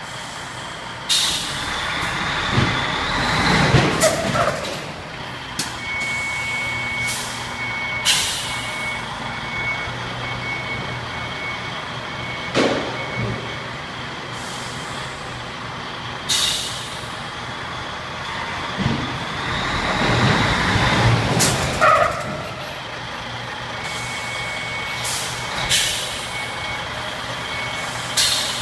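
A DAF CF truck's diesel engine idling, with repeated short air-brake hisses as the brakes are applied and released on a plate brake tester. Twice the engine pulls harder as the truck rolls across the plates. A rapid high electronic beeping sounds twice, for several seconds each time.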